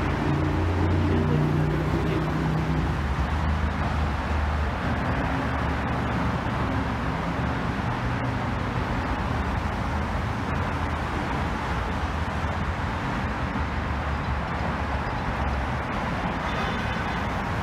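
Steady traffic on highway 9A. Low engine sound from a passing vehicle is strongest in the first few seconds.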